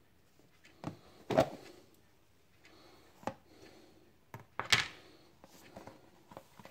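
A plastic salt box being handled and opened: a string of sharp plastic clicks and knocks, the two loudest about a second and a half in and just before five seconds in.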